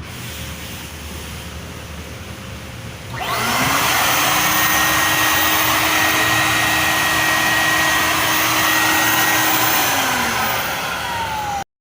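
Freshly rebuilt two-turbine industrial vacuum suction motor switched on about three seconds in, spinning up into a loud steady whine and rush of air. About ten seconds in it starts to wind down, falling in pitch, until the sound cuts off abruptly.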